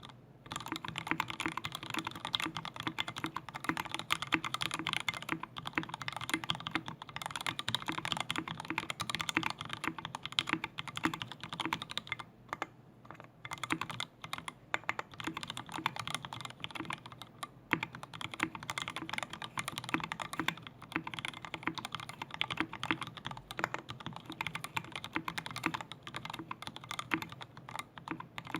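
Continuous typing on a custom 60% mechanical keyboard with lubed Tealios V2 linear switches, a brass plate, thick PBT keycaps and a solid aluminium case: a dense run of keystrokes with a brief pause about twelve seconds in.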